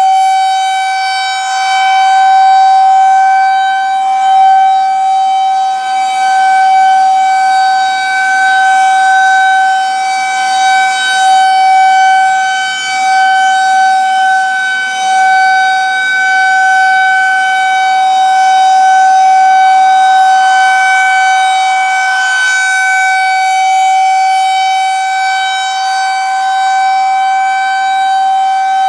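Federal Signal 2001-130 electromechanical outdoor warning siren sounding the Alert signal, a steady single-pitched wail. The sound swells and fades every several seconds as the siren's horn rotates.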